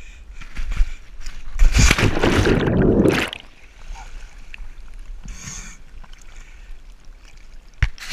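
A person with a body-mounted action camera going off riverside rocks into the water: a loud rushing, splashing burst lasting about a second and a half, then quieter splashing and movement in the water, with a sharp knock near the end.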